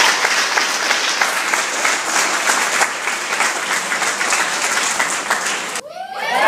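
Audience applauding, a dense steady clapping. Near the end it cuts off suddenly, and a crowd's cheer rises.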